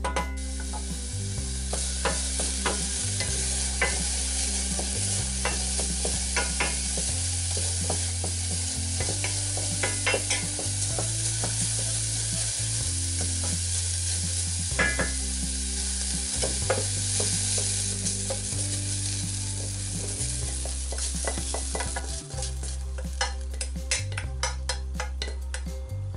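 Diced onion sizzling in a little oil in a stainless steel saucepan, with the spatula knocking and scraping against the pan as it is stirred. The sizzling stops a few seconds before the end, leaving only a few clicks, over steady background music.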